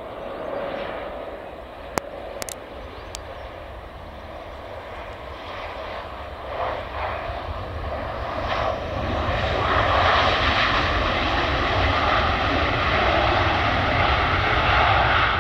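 A Boeing 737-800's CFM56 jet engines during landing and the roll-out along the runway. The engine noise builds steadily and is at its loudest for the last five seconds. A single sharp click sounds about two seconds in.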